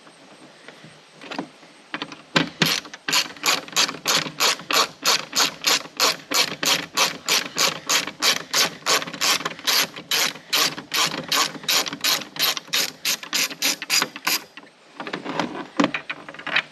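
Hand ratchet with a T40 Torx bit backing out a hood hinge bolt, the pawl clicking evenly about three times a second for some twelve seconds. The clicking stops and is followed by a few loose handling clicks near the end.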